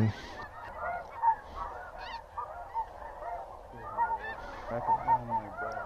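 Flock of snow geese calling as it circles overhead: a constant chorus of many short, high, overlapping honks, with a few nearer, louder calls about four to five seconds in.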